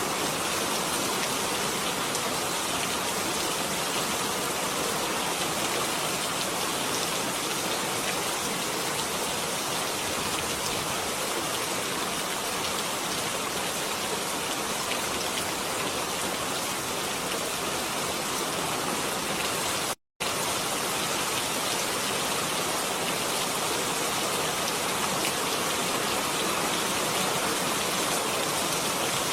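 Steady, dense rain falling, an even hiss with no single drops standing out. It cuts out to silence for a split second about twenty seconds in, then carries on unchanged.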